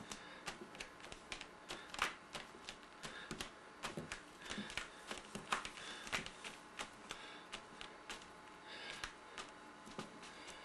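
Fingertips dabbing and tapping paint onto a canvas laid flat on a table: irregular taps, several a second, with a couple of louder ones about two and five and a half seconds in.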